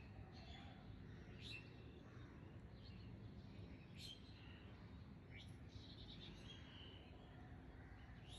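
Near silence: faint room tone with a few faint, brief bird chirps now and then.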